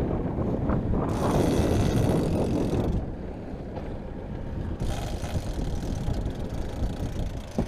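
Wind buffeting the microphone over the low, steady running of a boat's engine. The wind is strongest for the first three seconds, then eases.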